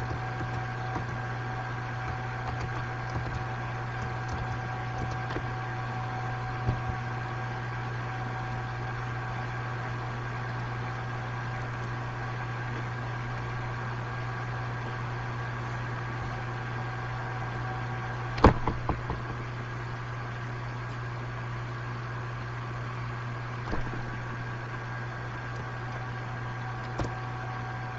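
Steady low hum and hiss of an open microphone line, with faint steady higher tones over it. A single sharp click comes about two-thirds of the way through.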